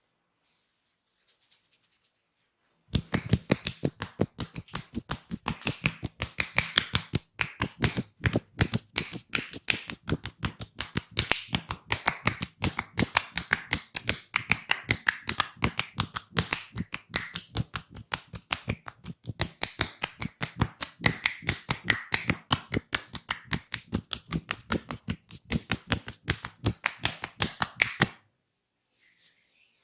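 Hands striking the body in a massage, a rapid series of sharp taps or slaps, several a second, that starts about three seconds in and stops suddenly near the end.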